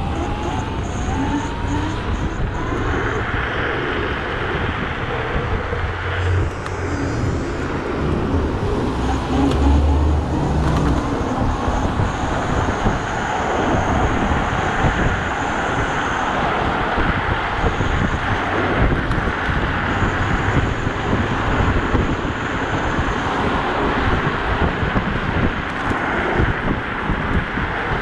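Steady wind noise rushing over the microphone of a rider on a Dualtron electric scooter at speed, with street traffic mixed in.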